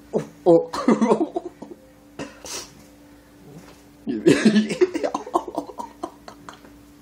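People laughing and exclaiming without clear words, in two bursts: one in the first second or so, another starting about four seconds in.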